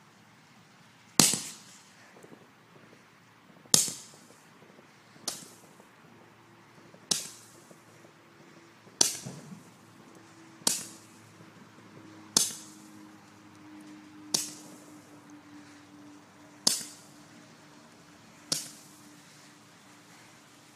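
Roman candle firing: ten sharp pops about two seconds apart, each a burning ball shot out of the tube.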